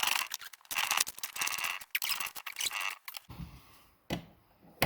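Ratchet wrench tightening the nuts on the bolts that mount a bench vise to a workbench, clicking in repeated strokes for about three seconds, then a couple of short knocks.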